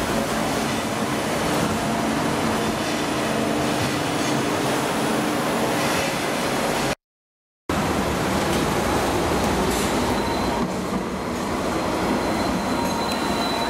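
Sydney light-rail trams running close by: an electric tram's motors humming and its steel wheels rolling on the rails. The sound drops out for a moment about seven seconds in, then another tram passes, with a thin steady high whine from about ten seconds in.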